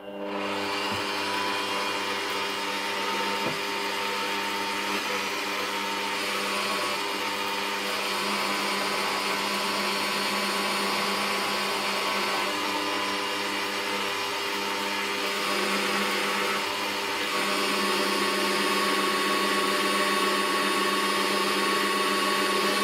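Bosch bench drill starting up and running at slow speed, its bit drilling into an aluminium alloy bar held in a machine vise: a steady motor whine that grows a little louder in the last few seconds.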